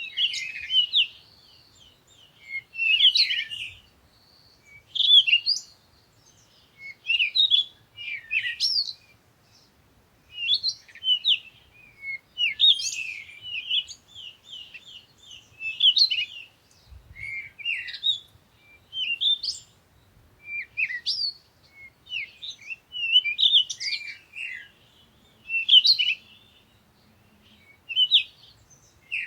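Birdsong: short phrases of quick chirps and trills that slide in pitch, repeating every one to two seconds with brief pauses between them.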